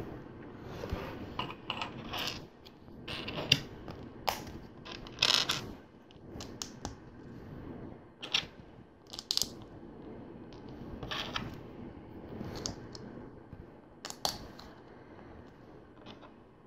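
Plastic LEGO bricks clicking and clattering as pieces are picked out, handled and pressed together, in irregular sharp clicks over a soft rustle of handling.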